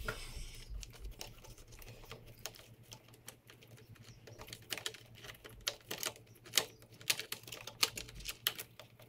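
Irregular light plastic clicks and rattles of a Honda Motocompacto's wiring connectors and cables being handled and pulled through its plastic body panels, coming thicker in the second half.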